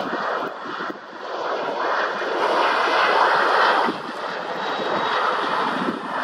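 Jet engines of a Boeing 737 airliner running as it lands and rolls out on the runway, a steady roar that grows louder between about two and four seconds in.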